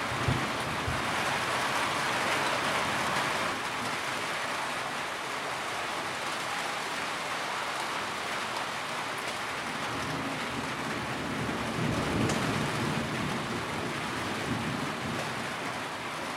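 Steady rain pattering on a tin roof, with low rumbles of thunder, the strongest about twelve seconds in.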